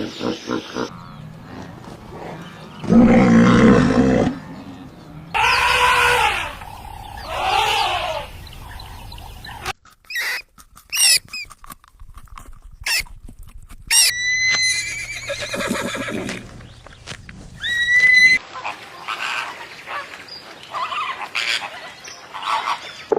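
A run of different animal calls, one after another, with abrupt changes between them: pitched calls and cries, a quick series of short chirps, and a couple of rising whistles.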